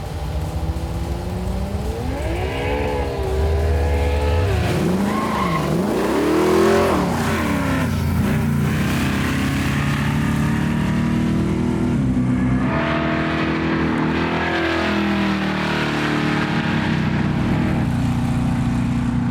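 Supercharged LSA-based V8 of a VL Commodore drag car revving up and down in sharp swings, then held at high revs through a long run, with a step in pitch about twelve seconds in, like a gear change. Tyre skid noise is mixed in.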